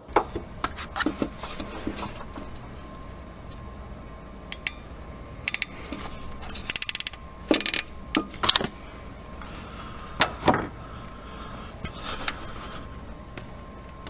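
Hand wire crimper at work on a wiring connector: scattered clicks of handling, a quick run of ratchet clicks about seven seconds in, then a few louder snaps as the tool closes and releases.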